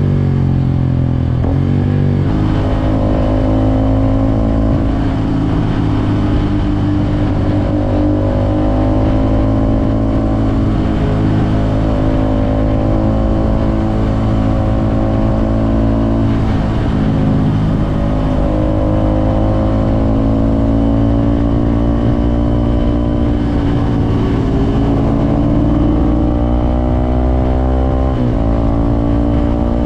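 Suzuki Gixxer SF 250's single-cylinder engine running steadily while riding. Its pitch dips about two seconds in and drops sharply near the end before climbing again, as at a gear change.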